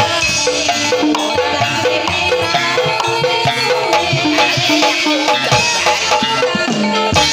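Ebeg (kuda kepang) accompaniment music in Javanese gamelan style, with mallet-struck metallophones playing quick repeated interlocking notes over regular hand-drum strokes.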